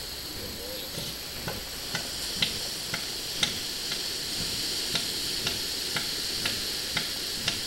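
Northern elephant seal bull giving his territorial threat call: a steady train of short, knocking pulses, about two a second, starting about a second in.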